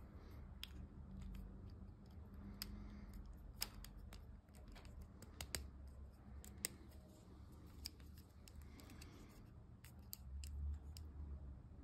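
Faint, irregular clicks and snaps of a hard plastic AirTag holder being handled and its two halves pressed together around the AirTag.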